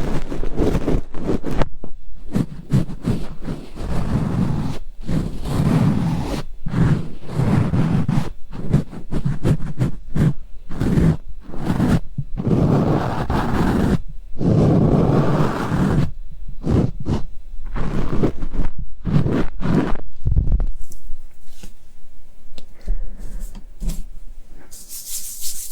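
An ear-cleaning tool rubbing and scraping against a microphone's ear, close and loud. It goes in irregular strokes, each from a fraction of a second to about two seconds, with short breaks between. A brief high hiss comes near the end.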